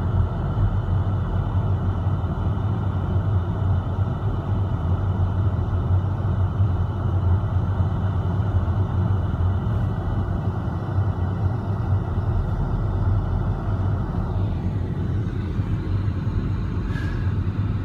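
Steady low rumble of a car being driven slowly, heard from inside the cabin. The hiss above the rumble eases off about three-quarters of the way through.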